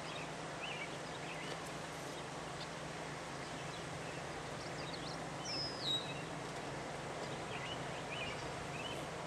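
Birds calling over a steady open-air hiss and low hum: one whistled call that steps down in pitch a little past halfway, and a few short faint chirps.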